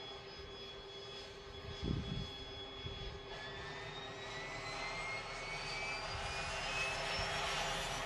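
Pratt & Whitney Canada PT6A-21 turboprop of a 1967 Beechcraft King Air A90 starting up. A steady high whine begins rising in pitch about three seconds in and keeps getting louder as the engine spools up and the propeller speeds up. A brief low thump comes about two seconds in.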